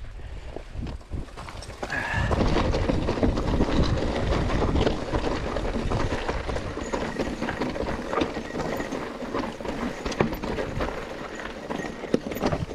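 Mountain bike rolling over a rocky trail: tyres crunching on stones and the bike rattling with a dense, irregular clatter of knocks, louder from about two seconds in.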